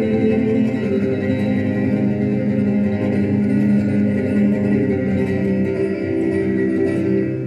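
Steel-string acoustic guitar played solo, many notes ringing together over sustained low bass notes.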